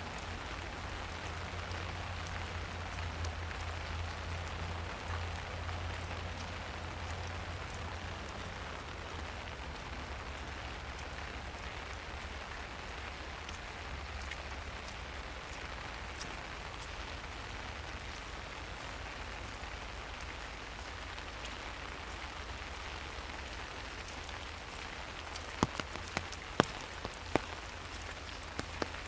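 Steady rain falling through a forest, an even hiss of drops on leaves, with a low rumble underneath. Near the end come a few sharp, separate taps.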